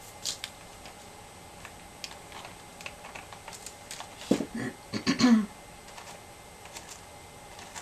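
Light clicks and taps of seashells being handled and set onto a canvas, with a short cluster of louder knocks about four to five seconds in.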